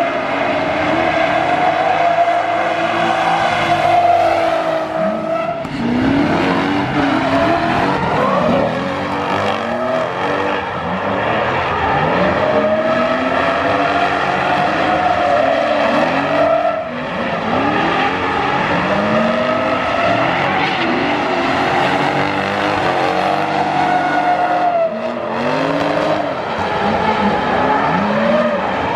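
Two BMW 3 Series drift cars sliding in tandem, their engines revving hard and rising and falling again and again with throttle and gear changes, over the screech of tyres sliding sideways.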